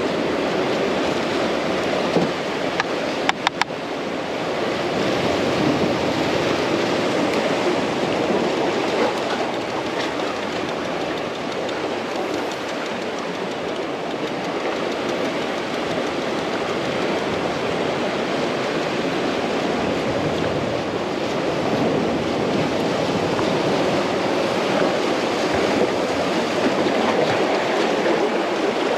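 Ocean surf washing steadily on the shore, swelling a little now and then, with a few sharp clicks about three seconds in.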